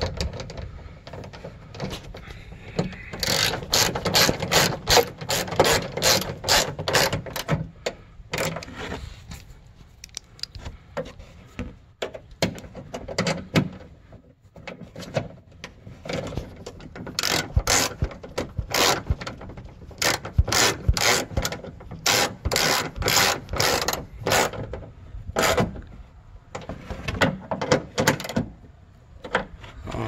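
Hand ratchet with a 10 mm socket clicking in quick runs of strokes, with short pauses between, as it tightens the bolts of a trunk latch assembly.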